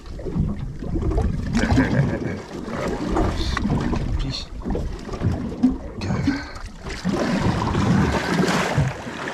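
Wind buffeting the microphone over water sloshing against a small boat's hull, with scattered knocks, and a louder rush of noise for a couple of seconds about seven seconds in.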